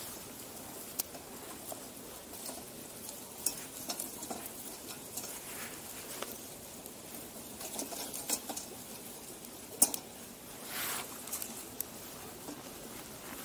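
Small campfire of damp wood crackling, with scattered irregular pops and snaps over a steady hiss, and a brief rushing noise near the end.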